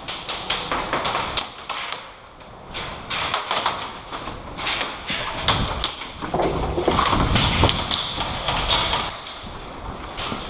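Irregular taps and thuds from an airsoft player on the move: footsteps and handling of gear.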